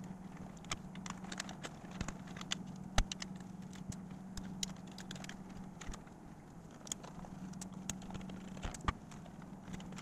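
Small scattered clicks and rattles of wires and plastic connectors being handled and unplugged inside a Sony TC-K611S cassette deck, over a steady low hum.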